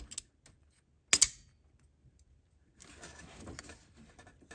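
Locking pliers being set and clamped onto a hose clamp: a few small metallic clicks, then one sharp metal snap about a second in, followed by faint scraping and handling as the clamp is squeezed open.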